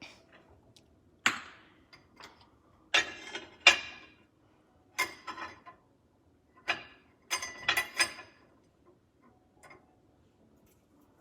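Kitchen utensils and dishes clinking and knocking: about eight separate knocks at uneven intervals, some with a short ring.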